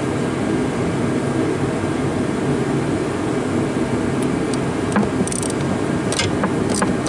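Tractor engine running steadily with its hydraulics under pressure, the spool valve leaking and spraying oil. A run of short sharp clicks starts about four seconds in.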